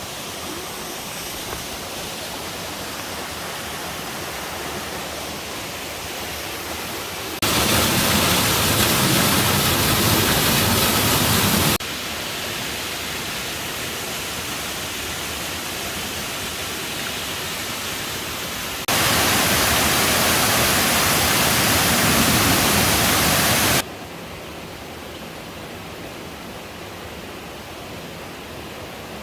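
Rushing water of a mountain stream and waterfalls, a steady even rush. It jumps suddenly louder twice, for about four and five seconds, and drops back just as suddenly each time.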